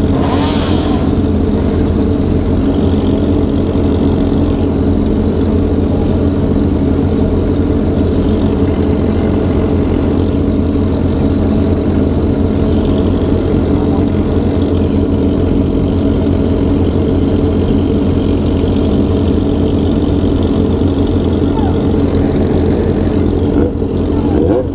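Sport motorcycle engines idling steadily while stopped, with a brief rise in pitch near the end.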